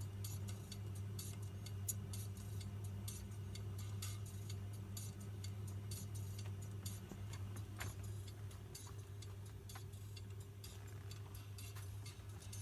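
Ela 103 record-cutting lathe running, a steady motor hum under regular, fast ticking.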